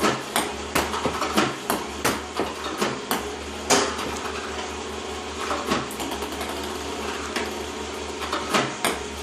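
iPong Pro table tennis robot running with a steady motor hum and sharp clicks as it feeds and shoots balls, evenly about every two-thirds of a second at first. After about four seconds the clicks stop and come back only now and then, a gap in firing that fits the misfiring the owner describes.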